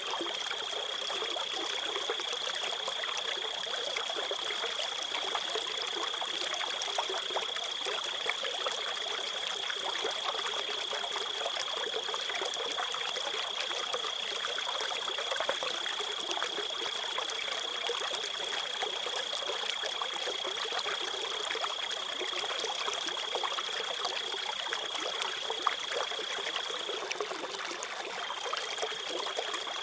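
Water trickling like a small stream, with a cricket trilling on one steady high note over it. The trill breaks off for about a second near the end, then starts again.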